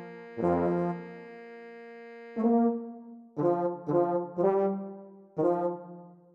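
Low brass instruments, trombone-like, play a piece for bass instruments: six separate, well-spaced notes over a held chord.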